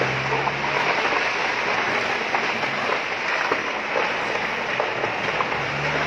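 Large fire in a plastic factory warehouse, giving a steady rushing noise with scattered crackles, mixed with water spraying from a fire hose.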